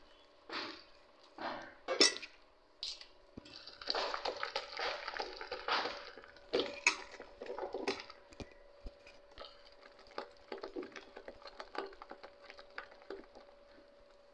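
A hand mixing thick vada batter in a steel bowl: irregular wet squishing strokes with occasional clinks against the bowl, busiest in the first half.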